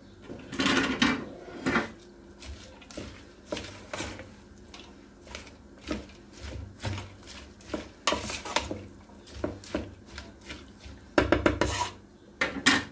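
A spoon stirring sliced onions in an aluminium pot, scraping and knocking against the metal in irregular strokes, with a louder run of knocks near the end.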